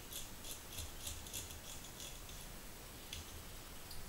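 Small crosshead screwdriver turning the little screws out of the end cap of a DRO glass linear scale: a run of faint, quick clicks, several a second, thinning out midway and picking up again near the end.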